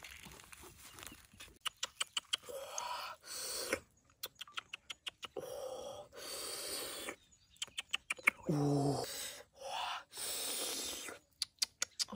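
Close food-handling sounds: grilled fish pulled apart by hand on a banana leaf and a spoon clicking and scraping in a coconut-shell bowl of sauce, a string of sharp clicks and short rustles. About eight and a half seconds in there is a brief hummed voice sound.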